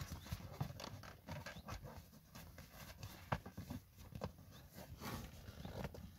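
Hands pulling and stretching a snug leatherette seat cover over a car's rear backrest: soft rustling of the material with scattered irregular clicks and light knocks, a few stronger ones about three and five seconds in.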